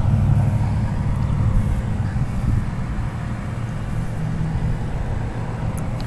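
Wind buffeting the microphone: a low, irregular rumble that rises and falls in gusts.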